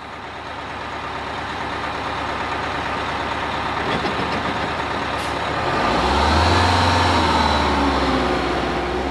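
Line of school buses running in slow traffic, a steady engine rumble that grows louder and deeper from about six seconds in as a bus draws close.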